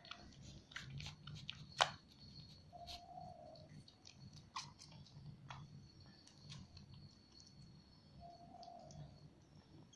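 Kittens suckling at their mother cat, making small scattered clicks and smacks, the loudest a sharp click about two seconds in. Crickets trill steadily in the background.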